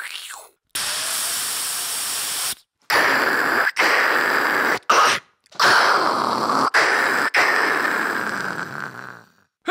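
Mouth-made hissing noise, a beatboxer's imitation of a hissing sound effect: one steady hiss lasting about two seconds, then a run of long hisses broken by short gaps, the last one fading out.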